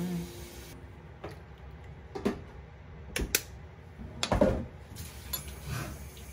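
A handful of light knocks and clinks at uneven intervals: a ladle tapping the metal pot while nigari is stirred into soy milk for tofu, and a small plastic bottle set down on the counter. The loudest knock comes about four seconds in.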